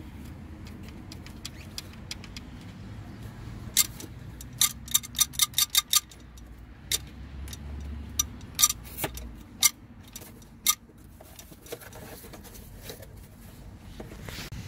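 Sharp metallic clicks of a loose timing chain on a Mitsubishi Fuso Canter 4P10 engine as it is worked by hand against its sprocket and guides: a quick run of about six clicks in the middle, then a few scattered ones, over a low steady rumble.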